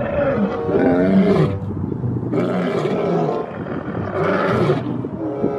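Two male lions roaring together, one deep roaring call after another.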